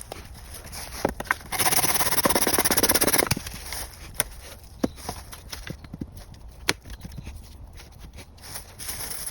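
Hand woodworking on birch logs: one rasping scrape of about two seconds, starting about a second and a half in, with scattered sharp knocks of wood before and after it.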